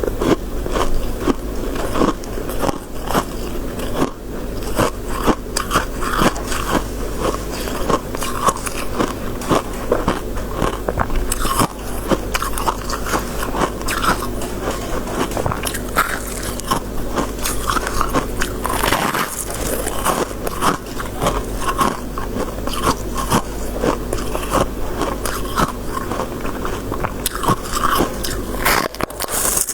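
Close-miked biting and chewing of crisp shaved ice, freezer frost, with dense crunching and crackling that goes on without a break.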